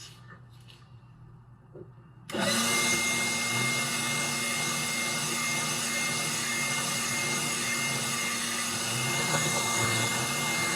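Leaf blower switched on about two seconds in and running steadily at full speed, with a steady whine over the rush of air, blowing dust out of an electric space heater's fan and heating element assembly.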